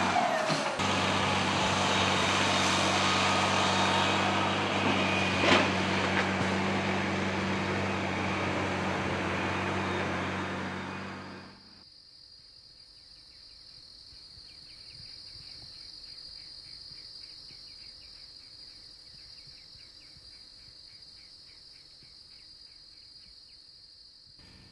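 A heavy engine runs steadily under a broad rush of noise, with one sharp crack about five and a half seconds in. It fades out at about twelve seconds. That leaves insects: a steady high whine and a faint, rapid chirping several times a second.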